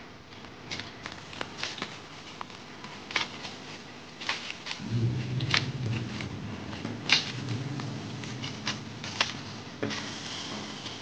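Hand tools chopping at grass and brush, giving sharp, irregular strikes from several people working at once. A low hum joins in for a few seconds around the middle.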